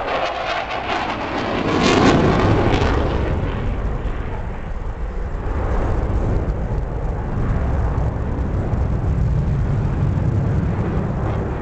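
F/A-18 Hornet jet fighter flying past, its jet roar loudest about two seconds in, then easing into a steady low rumble.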